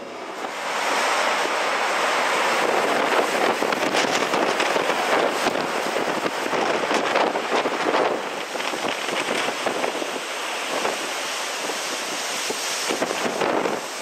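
Hurricane-force storm wind blowing hard across the camera microphone: a loud, unbroken rush that swells about half a second in and eases slightly after about eight seconds.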